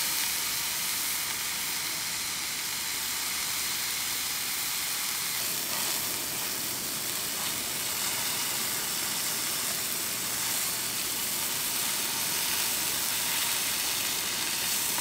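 Steak sizzling in a nonstick frying pan over a butane canister stove, a steady hiss.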